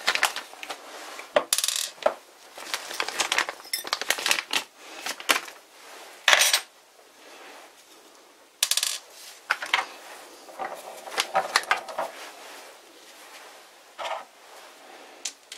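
Small steel parts clicking and clinking on a tabletop as they are picked up and set down: tiny set screws, flat spanners and a small spindle with a drill chuck. The clicks come irregularly, with a few brief louder scrapes.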